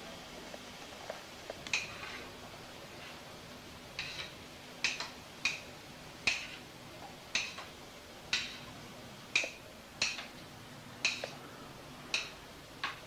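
Knife blade clicking against hard floor tiles again and again while spilled food is scraped up: sharp short clicks, each with a brief ring, coming irregularly about once a second and more often after the first few seconds.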